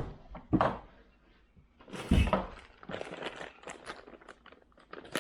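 Handling of soft-plastic fishing baits and their plastic packaging: a few knocks, one with a dull thud about two seconds in, then a run of short crinkling rustles.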